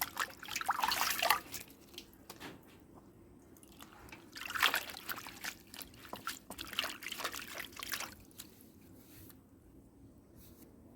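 Water splashing and trickling as butterfly pea flowers are washed and rinsed. It comes in bursts, in the first second and a half and again from about four and a half to eight seconds in, then dies down.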